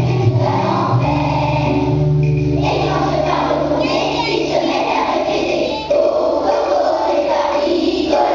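Children's school choir singing together to an instrumental accompaniment. The accompaniment's low bass notes drop out about five seconds in, while the singing carries on.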